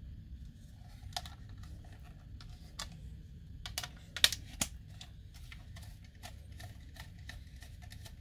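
Small screwdriver working a screw into a plastic RC transmitter to fit its antenna: irregular light clicks and ticks of metal on plastic, the sharpest a little over four seconds in.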